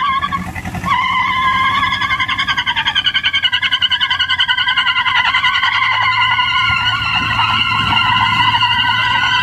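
Tyres squealing on asphalt in a high, wavering, continuous screech as an SUV and a tractor strain against each other in a tug-of-war. A low engine drone joins underneath about six seconds in.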